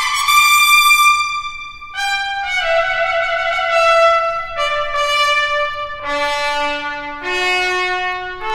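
Solo trumpet playing a series of long, held notes, stepping down from a high note to a low one about six seconds in, then climbing again near the end.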